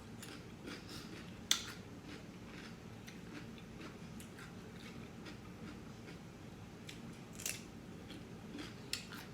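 Close-up eating mouth sounds: scattered sharp wet clicks and smacks, with a louder click about a second and a half in and another about seven and a half seconds in.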